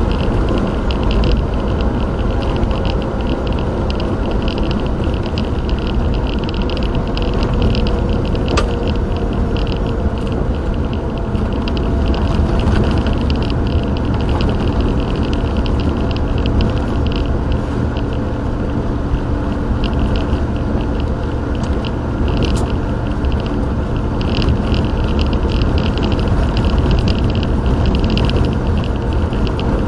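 Steady road and engine rumble inside a moving car, as picked up by a dashcam.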